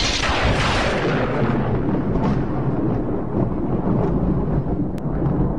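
Explosion sound effect: a sudden loud boom at the start, its hiss fading over about two seconds into a steady deep rumble.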